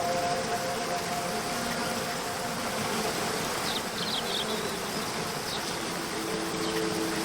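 Steady rush of a waterfall, with soft held notes of background music over it and a few brief bird chirps about four seconds in.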